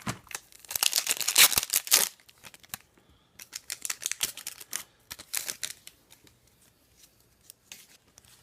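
Foil hockey card pack wrapper being torn open and crinkled, in two loud rustling bursts, followed by fainter rustles and ticks as the cards are handled.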